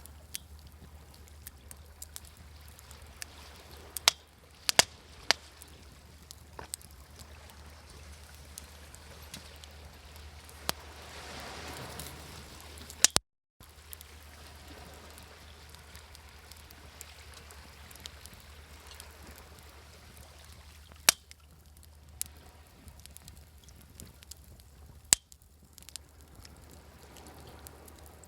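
Wood campfire crackling, with a few sharp pops over a soft steady wash of sea waves; one wave swells up about twelve seconds in. The sound cuts out for a moment just after that swell.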